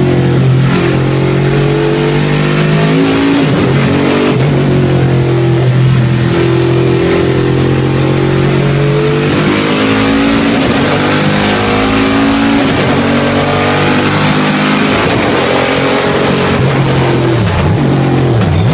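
Eight-cylinder racing engine heard from inside the caged cabin, driven hard on a circuit: its pitch climbs through the gears, drops back at each shift, and falls off sharply a few times when it slows for corners.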